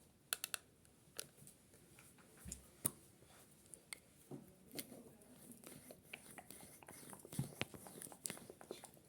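Scattered faint clicks, taps and soft rustles, a dozen or so spread irregularly, with a slightly louder thud about seven seconds in.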